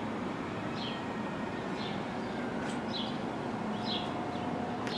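Steady rumble and hum of a Bombardier R62A subway train at the platform, with a small bird chirping about once a second and a few light clicks.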